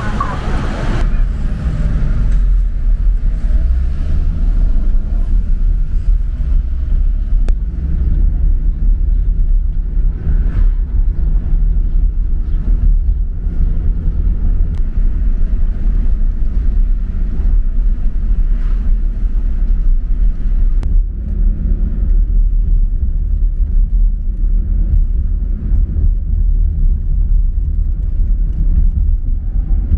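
A vehicle driving on a motorway: steady low engine and road rumble.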